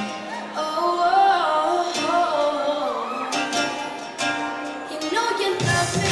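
Music: a song with a sung vocal line over instrumental backing, the bass and beat dropping out and then coming back in near the end.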